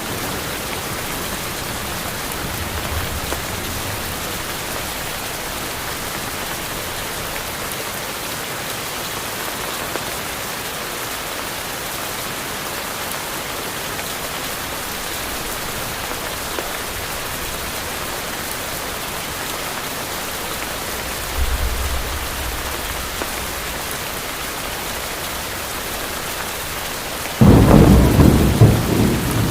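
Steady heavy rain with a faint low thunder rumble twice, then a sudden loud thunderclap near the end.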